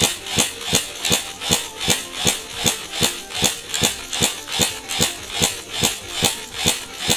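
An Ares Amoeba 009 electric airsoft DMR firing a long, even string of semi-automatic shots, about two and a half a second.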